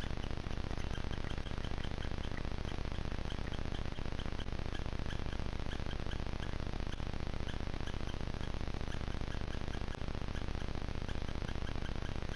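Steady hiss from a trail camera's microphone, with short high chirps from a small bird repeating many times in the background.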